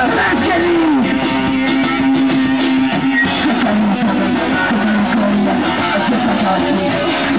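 Hardcore punk band playing live: electric guitar and drum kit, loud and continuous, with held guitar notes.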